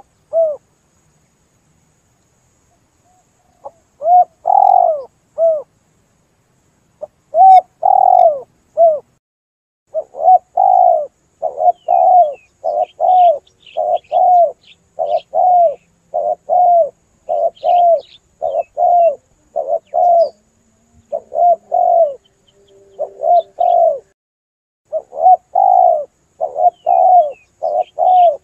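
Spotted dove (tekukur) cooing loudly in repeated short coo phrases, a few spaced apart at first, then in a near-continuous run from about ten seconds in. Faint chirps of small birds sound above it.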